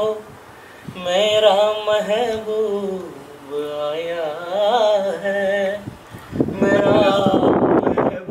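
A man singing unaccompanied, holding long notes with ornamented turns and slides in pitch. Over the last two seconds a rougher rush of noise joins the voice.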